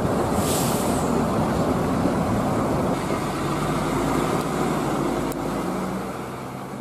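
Large coach buses running and pulling past, with a steady engine rumble and road noise. A short hiss of air comes about half a second in, and the sound fades toward the end.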